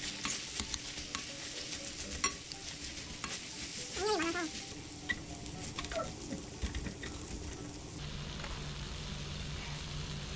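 Two metal spoons scraping and chopping rice through thick sauce in a shallow pan over a portable gas burner, with the sauce sizzling as fried rice is stir-fried; many small clicks of spoon on pan.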